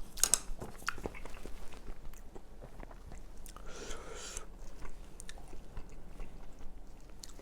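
A person chewing a mouthful of soft braised pork and kimchi close to the microphone, with wet mouth clicks, a louder one just after the start. A short hissy noise comes about four seconds in.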